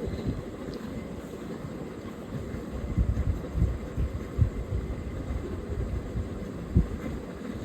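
Head massage: hands pressing and patting on the head, heard as dull low thumps at an uneven pace over a low rumble.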